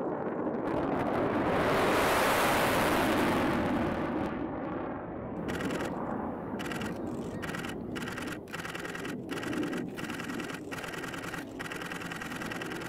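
Lockheed Martin F-35 fighter jet's single engine passing low: a broad jet roar that swells to its loudest about two seconds in, then goes on as a steadier, lower rumble as the jet flies away.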